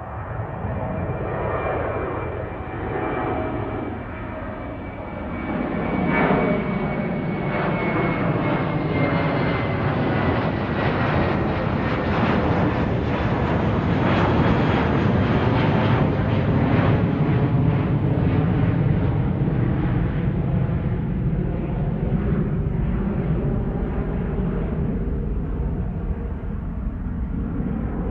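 Jet aircraft engines running close by, a thin high whine slowly falling in pitch while a heavy rumble swells about six seconds in and then holds steady and loud.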